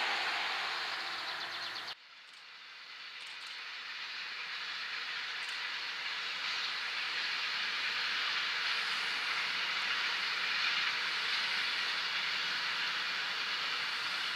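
A locomotive-hauled freight train of container and tank wagons passing at a distance: the wheels on the rails make a steady rushing hiss that swells over a few seconds, then holds. Before that, an earlier train sound cuts off abruptly about two seconds in.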